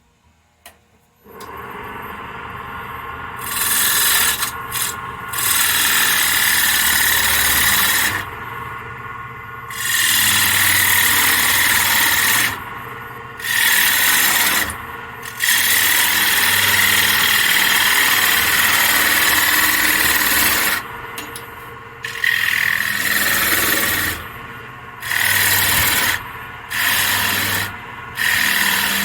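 A wood lathe starts about a second in and runs. A tool is then held against the spinning wooden piece in repeated loud scraping passes of a few seconds each, with short lulls between them, as the lid is shaped.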